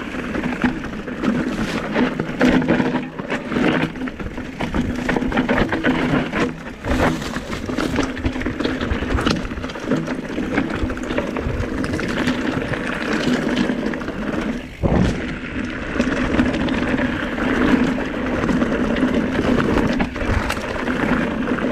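Electric mountain bike riding fast down a rough dirt trail: tyres rumbling and crunching over dirt and stones, and the frame, chain and suspension rattling and knocking over bumps, over a steady hum from the pedal-assist motor.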